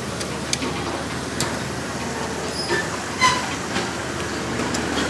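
Meat sizzling steadily on a smoky barbecue grill, with scattered clicks of metal tongs on the grate and a brief high-pitched sound a little over three seconds in.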